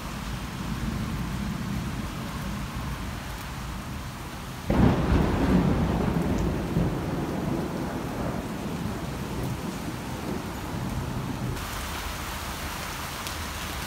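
Thunderstorm with heavy rain falling steadily, under rolling thunder. About five seconds in, a sudden loud thunderclap breaks out and rumbles away over several seconds.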